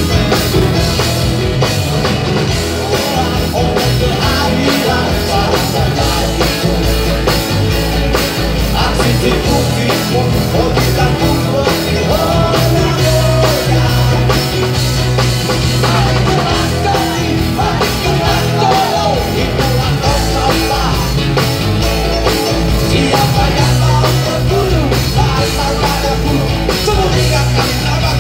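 Live band playing a rock song through large outdoor PA speakers, a drum kit keeping a steady beat under guitar and melody.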